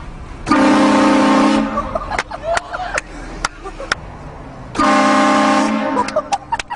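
Compressor-fed, four-trumpet train horn mounted on a vehicle, sounding two loud blasts of about a second each, about four seconds apart, several notes sounding together as a chord.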